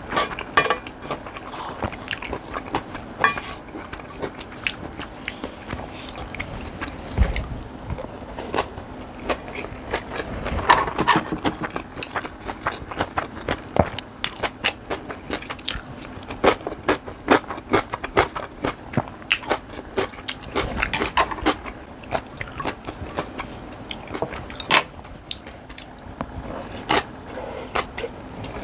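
A person eating bibimbap with crunchy vegetable side dishes: close chewing and biting, with many short crunches and clicks in quick succession.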